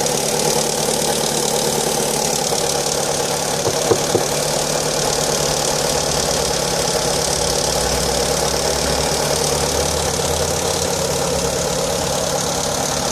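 Fiat Stilo 1.8 petrol engine idling steadily after a cold start, carrying the strange noise the owner hears on cold starts. Two short clicks about four seconds in.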